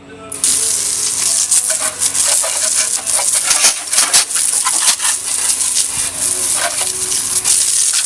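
Water from a garden hose spraying onto a motorcycle, a steady hissing spatter that starts about half a second in.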